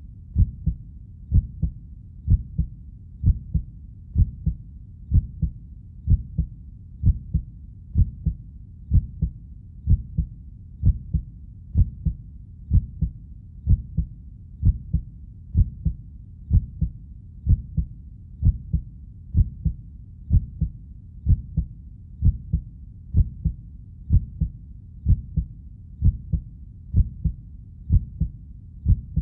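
Steady heartbeat, each beat a low double thump (lub-dub), about one beat a second in an even rhythm.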